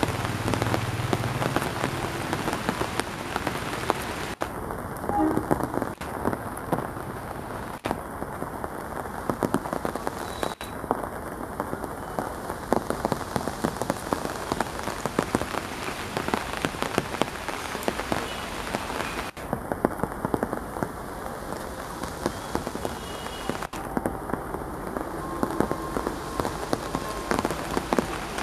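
Heavy monsoon rain falling steadily, a dense pattering hiss close to the microphone. A low rumble, the approaching diesel locomotive, fades out in the first two seconds.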